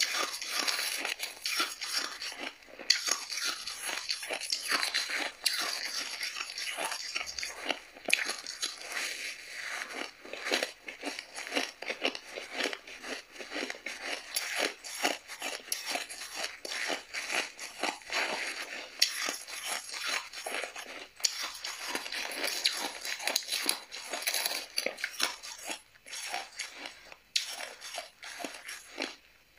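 A person crunching and chewing hard crushed ice and freezer frost, a dense run of rapid crisp crunches that does not let up.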